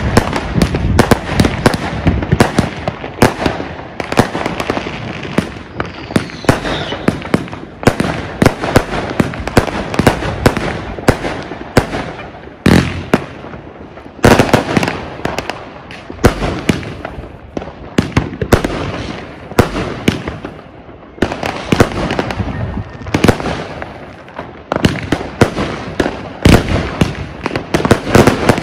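Argento Funke Walküre firework compound, four 500 g cakes with 131 shots of 20 to 30 mm calibre, firing in a rapid, nearly continuous string of launches and bursting shells. Heavier bangs stand out about 13 and 14 seconds in and again near the end.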